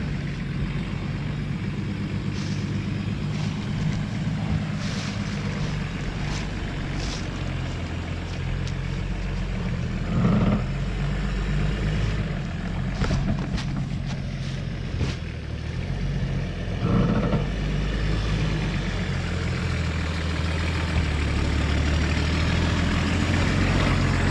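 Nissan Patrol GR 4x4's engine running at low revs while crawling over rough off-road ground, with knocks and rattles now and then.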